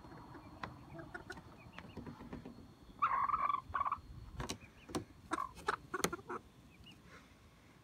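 Domestic hens calling while one is handled off the roost, in a loud run of calls about three seconds in and more calls a couple of seconds later. A few sharp knocks are mixed in.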